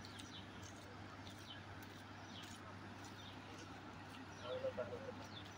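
Steady distant rush of flood water pouring through the dam's open spillway gates, with short high bird chirps repeating about once a second. A brief louder, lower sound comes about four and a half seconds in.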